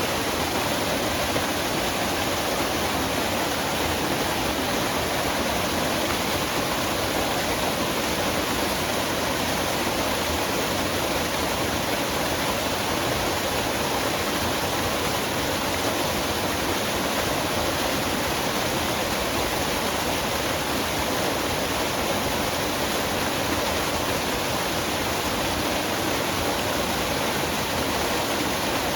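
Waterfall in a forest: water falling and splashing in a steady, even rush with no change.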